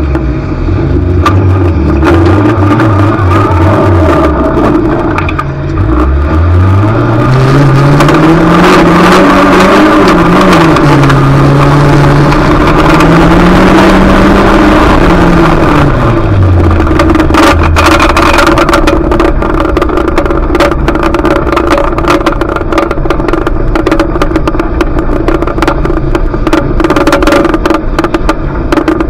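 Junior banger race car's engine under racing load: it runs at low revs, climbs for about four seconds, holds high and drops back about halfway through. Dense rattling and knocking runs over the engine after that.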